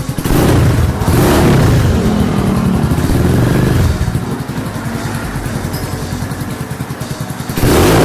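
Rusi Classic 250 motorcycle engine running loud through a bullet-pipe muffler with no silencer insert. It is revved for the first few seconds, drops back to a lower, steadier run, and is revved again near the end.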